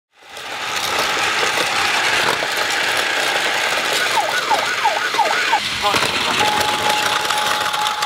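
Plarail DX crossing station toy playing its electronic sound effects and recorded voice while a battery-powered Plarail train whirs along the plastic track. About four seconds in there is a run of five quick falling chirps, and from about six and a half seconds a steady electronic tone.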